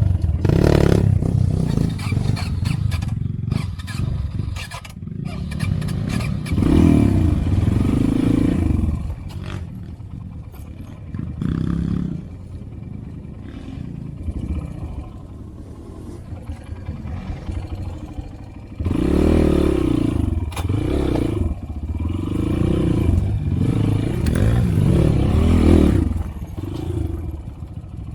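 Trail motorcycle engine running over a rough track, revving up in surges, with rattling and clattering from the ride. The strongest revving comes about six to nine seconds in and again from about nineteen to twenty-six seconds in.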